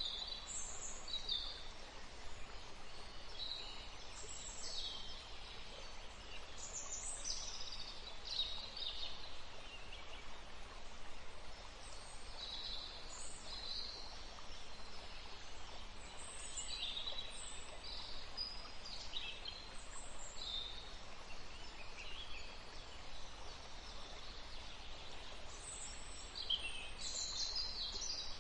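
Small songbirds chirping and calling in short, high phrases, many in quick succession and overlapping, over a faint steady background hiss.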